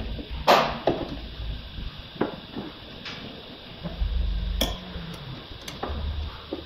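Sharp metallic clicks and clinks from a hand tool working against the bare sheet-metal inner frame of a car door, the loudest about half a second in, with a few dull low knocks between them.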